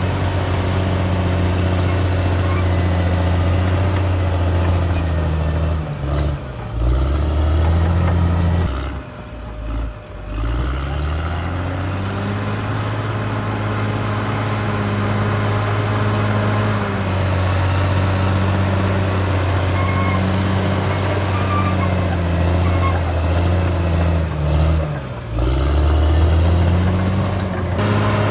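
CAT D6R bulldozer's diesel engine running steadily. Its pitch drops and picks back up three times: about six seconds in, around ten seconds in, and near twenty-five seconds.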